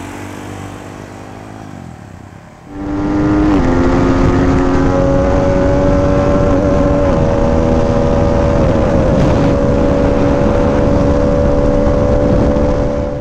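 Yamaha WR155R single-cylinder engine running, at first moderately loud with its pitch gliding. About three seconds in, it gives way abruptly to a much louder, steady engine drone held at a near-even pitch with a few small shifts.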